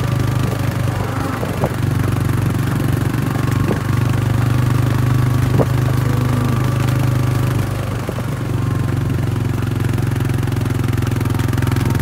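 Engine of a slow-moving vehicle running steadily at low revs, with a few sharp knocks over it.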